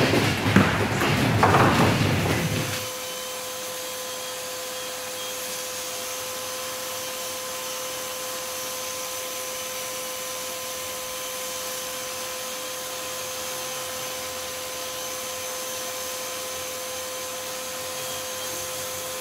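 Electric roller sander with a dust-extraction hose, running steadily on a fibreglass hull floor: a constant motor hum with a high whine. It starts about three seconds in, after some knocking and handling.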